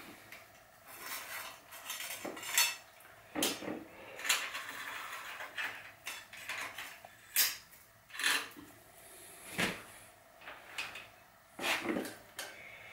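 Loose bicycle chain clinking and rattling as it is handled, in irregular metallic clinks.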